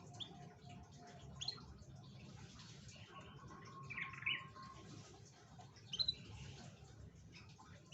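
Canary giving a few short, separate chirps, spaced a second or two apart, over a low steady hum.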